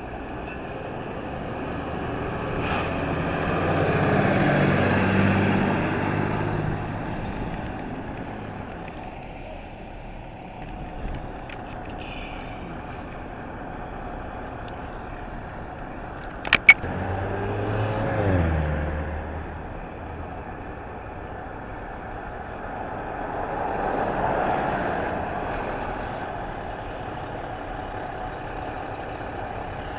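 Diesel engine of a fire department ladder truck pulling out of the station and driving off, rising to a peak about four to five seconds in and then fading. Past the middle come two sharp knocks in quick succession, then a deep engine note falling in pitch, another vehicle swell, and a steadier lower engine sound as a pumper tanker pulls out.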